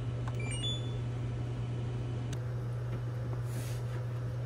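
Steady low electrical hum of a running appliance, with a few faint short high beeps in the first second and a brief soft hiss about three and a half seconds in.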